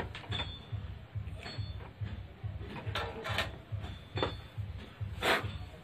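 Knocks and clicks of a circuit board and tools being handled on a wooden workbench, a handful of separate taps with the loudest about five seconds in, over a low pulsing of two or three beats a second.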